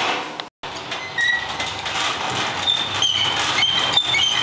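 Hand-cranked stainless-steel honey extractor spun fast with its lid closed, the drum and crank gearing rumbling steadily with repeated short high squeaks, as the spinning flings honey out of the comb frames. There is a brief break about half a second in.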